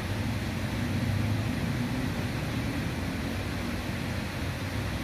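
Steady rushing background noise with a low motor hum that swells about a second in and then slowly fades.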